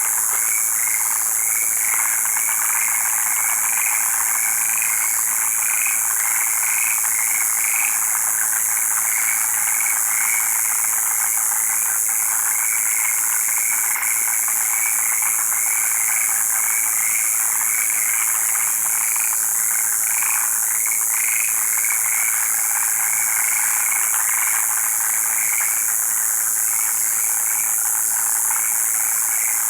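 A chorus of frogs calling, many short croaks overlapping in a steady, unbroken din, over a constant high hiss.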